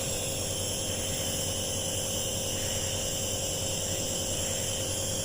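Nebuliser compressor running with a steady hum and hiss while it turns the medicine into a mist for inhalation.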